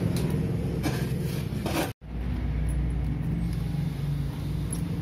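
Steady low rumble of an engine running, with a few sharp clicks in the first two seconds. The sound cuts out for a moment about two seconds in, then the rumble carries on.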